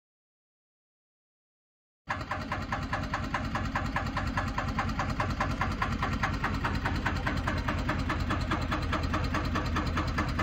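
About two seconds of silence, then a diesel engine idling steadily with a fast, even beat.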